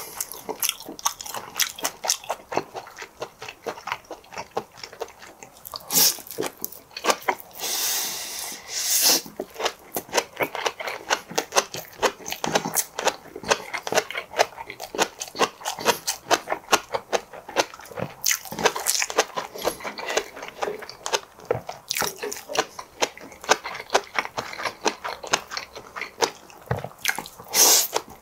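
Close-miked chewing of seafood: a dense run of small clicks from the mouth, with a few louder bites scattered through.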